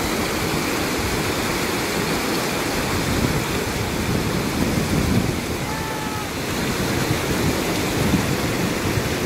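Rushing whitewater of a rocky mountain stream, a steady even rush of water.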